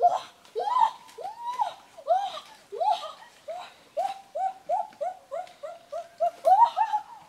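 An animal's repeated high whining cries, each rising and then falling in pitch, coming faster, about three a second, through the middle.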